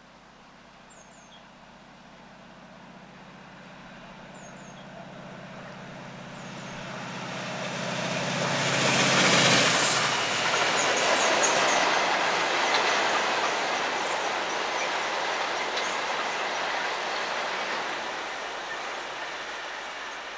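Diesel-hauled freight train of open wagons passing close by, led by a Class 68 and two Class 66 locomotives. The locomotives' engine note grows louder as they approach and peaks as they pass about nine to ten seconds in. The rumble and clatter of the wagon wheels follows and slowly fades.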